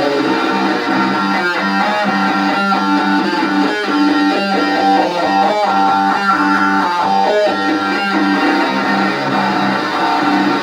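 Electric guitar played through an Orange amplifier, a doom-metal riff of low held notes picked about once a second.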